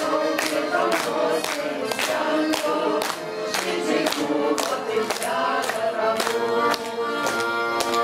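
Mixed vocal ensemble singing a Lithuanian romance song in harmony, accompanied by accordion, with a tambourine keeping a steady beat.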